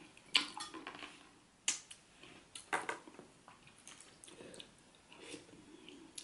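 A metal fork and spoon clinking and scraping against a ceramic plate as catfish head in pepper soup is picked apart. The clinks come irregularly, with the sharpest ones in the first three seconds.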